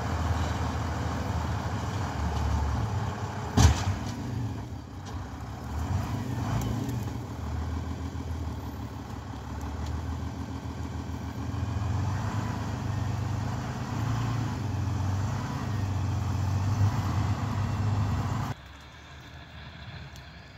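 Farm tractor with a snow-clearing attachment running steadily while clearing snow, with a single sharp knock about three and a half seconds in. The machine sound cuts off abruptly near the end, leaving a much quieter background.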